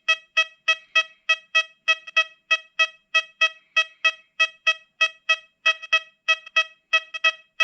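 XP Deus 2 metal detector sounding a rapid train of short, mid-pitched beeps, about three and a half a second, as a 1994 copper-plated zinc penny is passed back and forth over its coil. This is its response to a zinc penny, which reads a different VDI number from a copper one.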